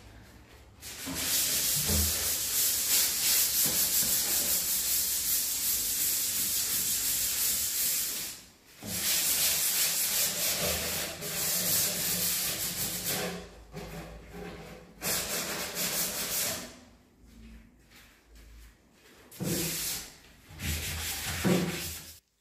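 Hand scuff-sanding of a solid-wood cabinet's old finish with 180-grit sandpaper: continuous back-and-forth rubbing strokes in long runs with a few short pauses, then quieter, shorter bouts near the end. It is a light sand to dull the remaining finish and key the surface for paint.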